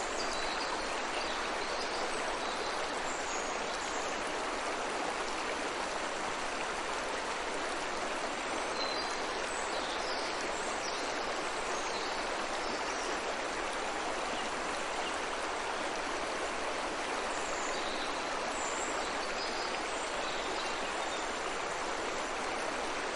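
A river or stream running steadily, an even rushing murmur, with faint short high bird chirps now and then.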